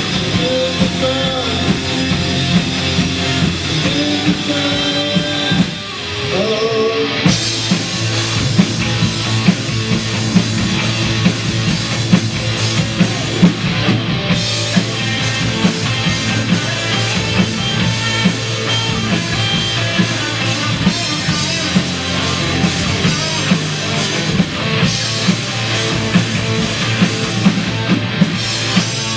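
Christian rock song played by a band with electric guitar, bass and drum kit. A sparser passage carrying a bending melodic line gives way, after a brief dip about six seconds in, to the full band with crashing cymbals and a steady beat.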